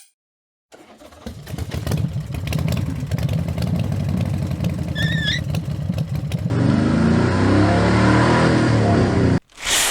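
A motor engine running and revving, rising after a short silence, then switching abruptly to a steadier drone that cuts off suddenly, with a short burst of sound right at the end.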